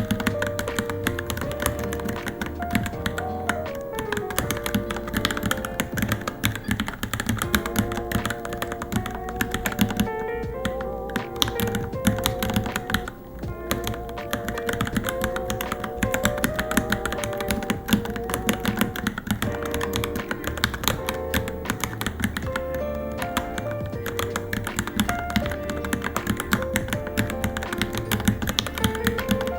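Continuous typing on a Varmilo Minilo mechanical keyboard, a dense stream of key clicks, over background music with a sustained melody.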